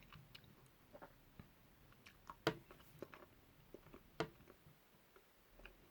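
Faint, scattered mouth clicks of someone chewing a soft chewy sweet, in near silence.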